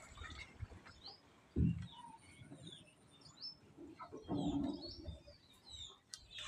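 Small birds chirping over and over in short rising and falling notes. A sudden low thump about one and a half seconds in is the loudest sound, and a brief low sound comes around four seconds in.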